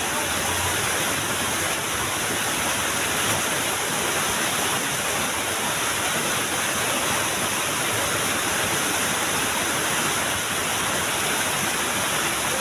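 Steady rush of water pouring over a small waterfall, an even unbroken noise at a constant level.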